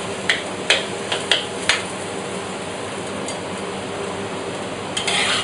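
Prawns, snow peas and mushrooms sizzling in a wok while a metal frying ladle scrapes and tosses them: several quick scrapes against the wok in the first two seconds, then steady sizzling, and another clatter of stirring near the end.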